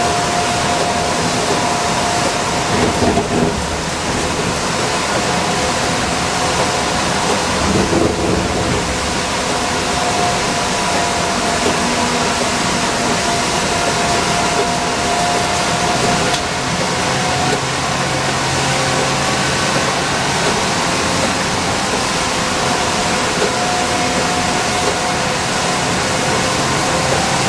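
Inside an Orion V transit bus cruising at highway speed on wet pavement: steady road and tyre hiss from the wet road, with a steady drivetrain whine running through it. The windshield wipers sweep now and then, with brief low bumps about 3 and 8 seconds in.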